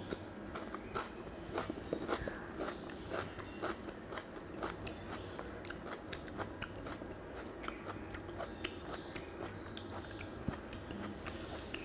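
Chewing and mouth sounds of a person eating curry and rice by hand: a steady, irregular run of short wet smacks and clicks, several a second.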